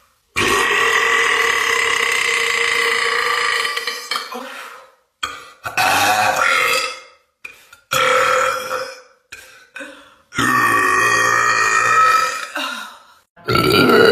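A woman belching loudly, five times: a long drawn-out belch of about four and a half seconds, then three shorter ones, and another starting right at the end.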